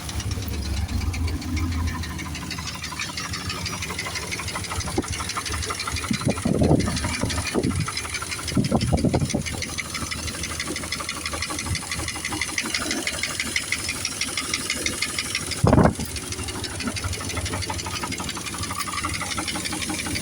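2000 Dodge Dakota's 4.7-litre V8 running just after a cold start with a fast, steady knocking and rattling throughout: the knock the owner is trying to diagnose. A few louder swells come about a third of the way in, and there is one short loud burst near the end.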